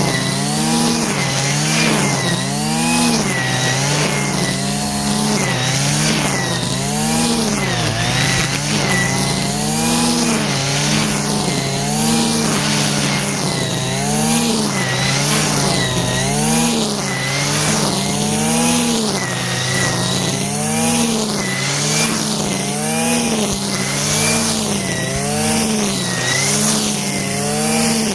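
Stihl FS 120 brushcutter's two-stroke engine being test-run after repair, revved up and let back down about once a second, over and over.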